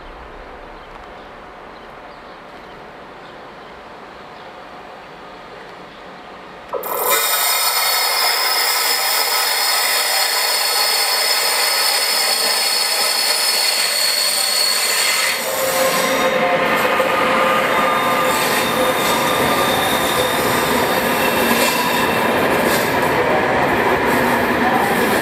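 Locomotive-hauled passenger train coming into a curved station track. About a quarter of the way in, a sudden high-pitched wheel squeal starts, with several steady shrill tones. Just past halfway, a loud low rumble joins it as the locomotive and coaches pass close by.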